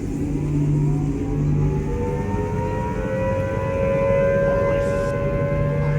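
Outdoor civil-defense tornado warning siren winding up, its pitch rising over the first few seconds and then holding steady.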